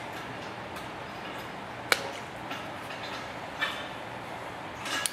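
A few sharp clicks and snaps as plastic air hose is cut and worked onto a push-to-connect fitting, over a steady low hiss; the loudest click comes about two seconds in.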